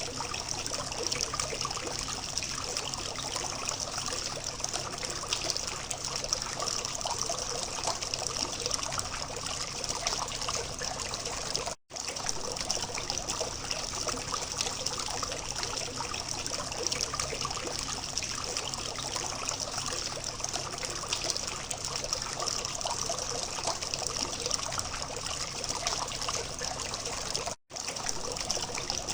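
Water from a small fountain trickling and splashing steadily, cutting out for an instant twice.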